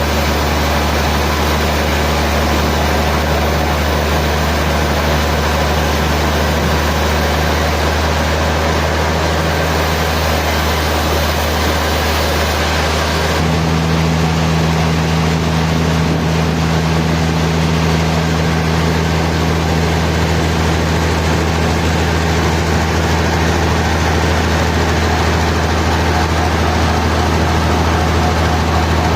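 Sawmill machinery running steadily with a deep, even hum; its tone shifts about halfway through.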